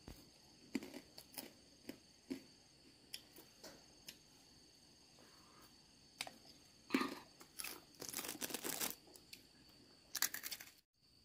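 Irregular rustling and crackling, like something dry being crumpled or torn, with a longer spell of it past the middle and another near the end, over a faint steady high-pitched hum.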